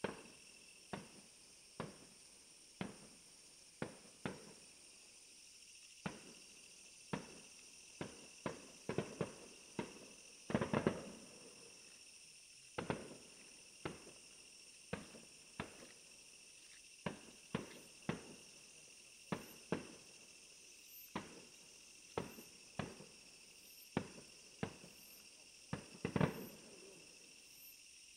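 Fireworks bursting in a string of sharp bangs, about one a second, with louder, quicker flurries about ten seconds in and again near the end. A steady high insect trill runs underneath.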